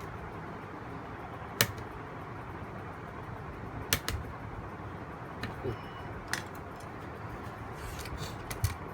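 Sporadic sharp clicks and light taps of small tools and parts being handled while a graphics card is disassembled, about six in all, over a steady background hum.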